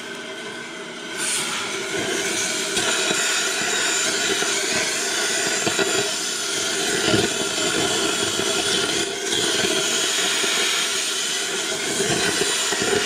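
Cutting torch hissing steadily as it cuts through the seized steel differential cross pin of a GM 12-bolt rear end, throwing sparks. The hiss jumps louder about a second in and holds.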